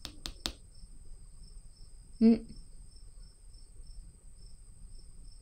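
Insects chirping: a steady high trill with a fainter pulsing chirp beneath it, and a few sharp clicks near the start.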